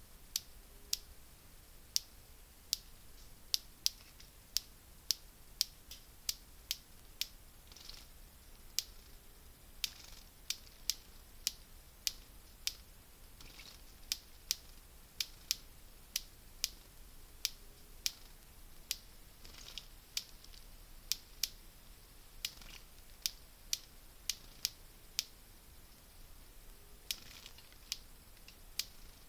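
Irregular sharp clicks, about one or two a second, over a faint outdoor background, with a few brief faint high calls in between.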